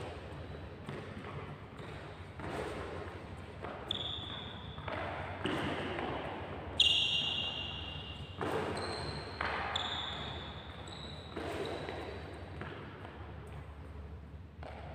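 Sports shoes thudding and squeaking on a wooden court floor during badminton shadow footwork: heavy steps and lunge landings roughly every second, some with a short high squeak of rubber soles, the loudest squeak about seven seconds in. A steady low hum runs underneath.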